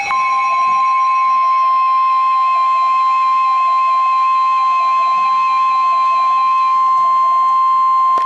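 Emergency Alert System / NOAA Weather Radio 1050 Hz warning alert tone: a loud, steady single pitch that switches on abruptly and holds, signalling that a warning message follows. A fainter second tone wavers up and down underneath about once a second.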